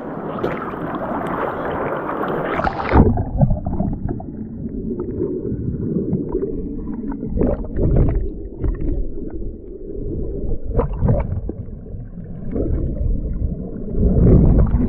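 Sea surf washing against rocks at the waterline. About three seconds in it turns to the muffled, low rumble of churning water heard underwater through a submerged camera housing, with bubbles and a few short knocks, and it swells again near the end.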